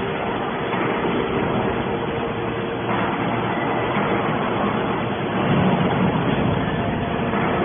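Hydraulic aluminium can baler running: a steady machine hum, swelling in its lower tones for about a second around five and a half seconds in.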